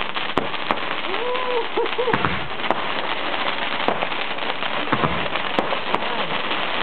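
Fireworks display: a dense, continuous crackling of bursting stars, broken by sharp bangs every second or so.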